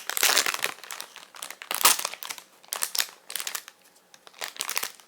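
A blind-box figure's sealed baggie crinkling and rustling in the hands as it is worked open, in irregular bursts, loudest in the first moments and again about two seconds in.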